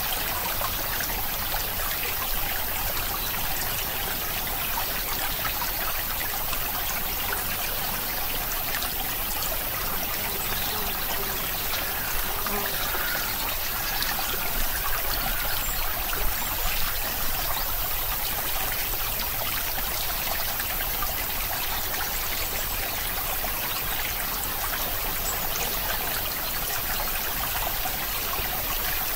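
Steady trickling of running water, like a small stream, with no change throughout.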